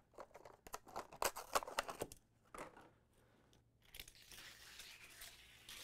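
Hot Wheels blister package, a clear plastic bubble on a cardboard card, crackling and tearing as it is pried open by hand. The crackling is densest in the first two seconds, then gives way to a few fainter rustles.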